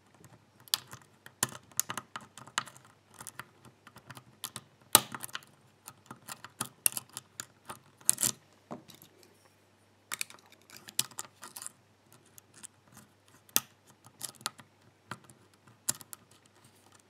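Hook pick and tension wrench working the pins of a Schlage Everest pin-tumbler cylinder during single-pin picking: irregular small metallic clicks and scrapes, a few louder clicks about five and eight seconds in, and a short pause a little past halfway.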